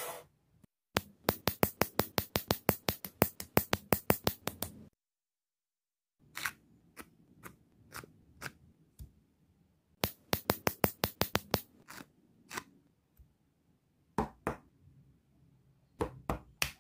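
Sharp plastic clicks of building-block pieces being handled and snapped together. They come in fast runs of about five clicks a second, broken by pauses and scattered single clicks.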